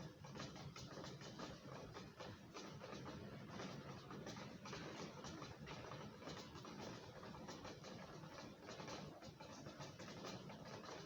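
Faint rain pattering: a dense, even stream of small irregular ticks.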